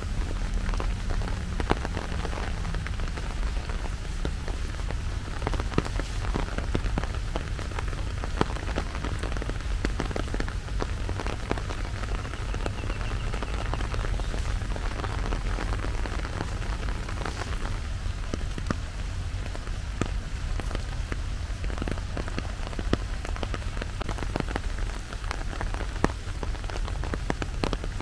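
Steady rain falling, with a constant patter of sharp drop hits over a low rumble.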